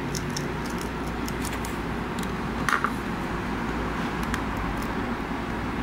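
Fingernails picking at and peeling a rubber foot strip, stuck on with adhesive, off the aluminium back of a Wacom Cintiq Companion 2 tablet: scattered small clicks and scratches, with a sharper crackle a little under three seconds in. A steady low hum runs underneath.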